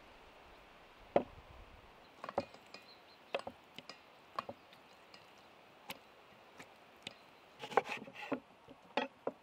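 A fork knocking against a wooden cutting board as avocado is mashed on it, in single sharp taps about a second apart, then a kitchen knife cutting a lemon on the board, with a quick cluster of knocks near the end.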